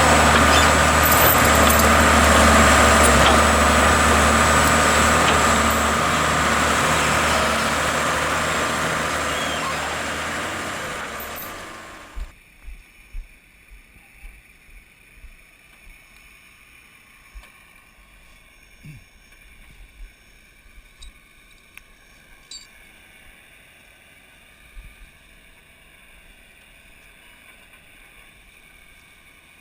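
Heavy machinery running with a steady deep hum and a high whine, fading over several seconds and then cutting off suddenly about twelve seconds in. After that, a quiet low rumble with scattered light knocks.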